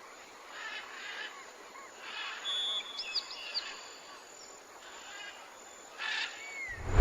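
Short high-pitched chirps and whistling calls, some sliding up or down, over natural outdoor ambience, with a low thump right at the end.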